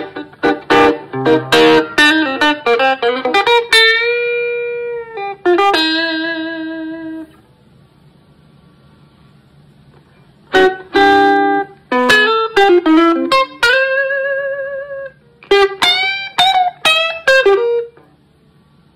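Electric guitar played through a Malagoli Sound ES-3 fuzz, wah and booster pedal: quick runs of picked notes and long held notes, one with a wavering vibrato. The playing stops for about three seconds in the middle and again near the end, leaving a low amplifier hum.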